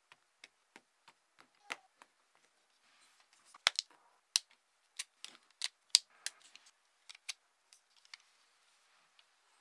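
Hard plastic parts of a 1/100 Master Grade model kit clicking and snapping as pieces are handled and pressed together, a run of sharp irregular clicks that is densest and loudest from about three to six and a half seconds in.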